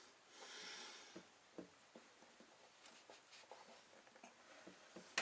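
Faint small clicks and rustling of hands working a wire wrist-pin retaining clip into a forged piston held in a rag, with one sharper click right at the end.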